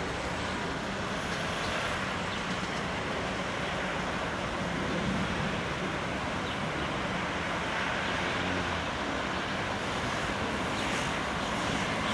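Four-engined Boeing 747 jet airliner flying on its landing approach, a steady, even jet rumble.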